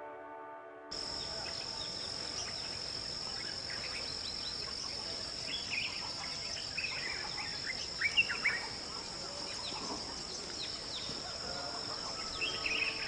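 Nature ambience that cuts in about a second in as soft music ends. It holds a steady high-pitched insect drone with many short chirping calls over it, which are busiest and loudest about eight seconds in.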